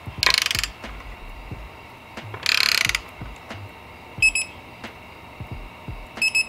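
Socket wrench ratcheting in two quick runs of rapid clicks as a bolt on the motorcycle engine guard is tightened, followed later by two short, high double chirps.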